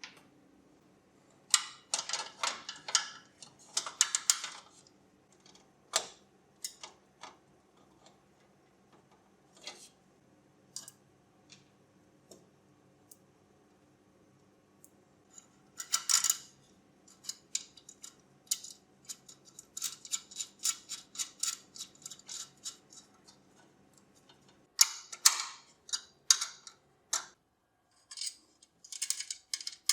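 Small hard parts being handled by hand: irregular clicks, taps and short rattles in several bursts, with a faint steady hum underneath that stops near the end.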